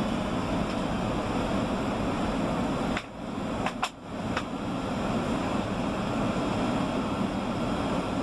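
Steady cabin roar of a Boeing 757-300 airliner on approach, jet engines and airflow heard from inside the cabin, with a brief drop in level and a few sharp clicks about three to four seconds in.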